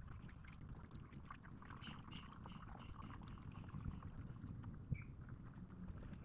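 Vegetable oil pouring faintly from a plastic gallon jug into a car engine's oil filler.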